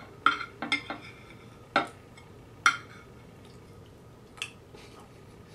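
Metal spoon clinking and scraping against a china plate, scooping up the last of the food: a quick string of sharp clinks with a short ring over the first three seconds, then one fainter clink near the end.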